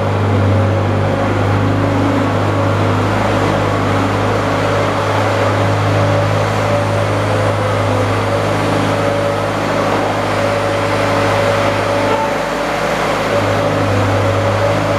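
Garden tractor engine running steadily, a continuous even hum with no change in speed.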